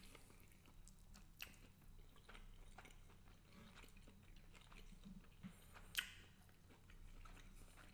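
Faint chewing of garlic butter shrimp pasta, with wet mouth clicks scattered through and one sharper click about six seconds in.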